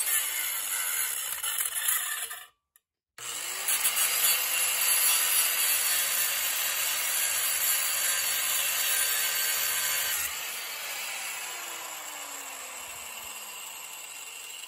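Cordless angle grinder with a cut-off disc cutting through the steel screw that holds the brake rotor to the hub, a screw too seized to remove any other way. The grinding cuts out briefly about two and a half seconds in, then resumes as the motor spins back up. About ten seconds in the cutting stops and the motor winds down with a falling whine.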